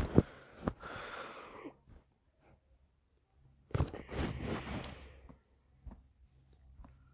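Close rustling and scraping noises with two sharp clicks at the start, then a louder stretch of rustling a little under four seconds in, and a few faint ticks near the end.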